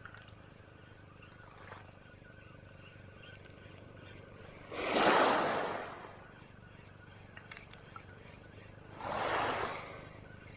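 Two small waves washing up a pebble beach, each a rising-and-falling hiss of about a second, the first near the middle and louder, the second about four seconds later.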